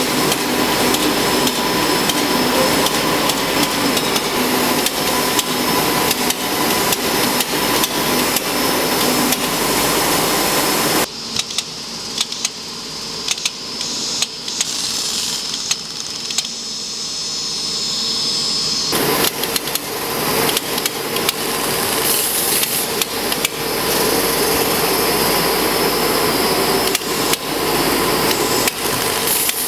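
Industrial robot's end effector working on an aircraft fuselage panel: rapid, repeated sharp knocks over steady machine noise, dropping to a quieter stretch in the middle before picking up again.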